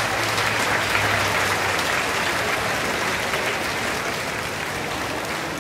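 Crowd applauding, loudest in the first couple of seconds and then slowly dying down.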